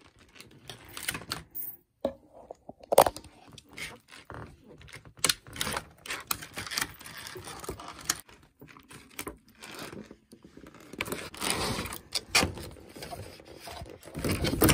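Clear plastic packaging film crinkling and a thin plastic tray clicking and scraping under the fingers, in irregular bursts of crackles and taps. There is a sharp click about three seconds in and denser rustling near the end.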